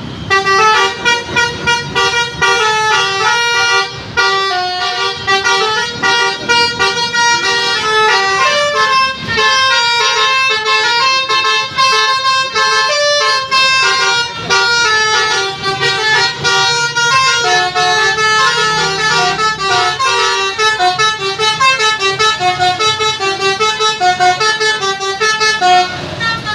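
Tour bus telolet basuri musical horn playing a fast melody of short, clear notes, tune after tune with hardly a break.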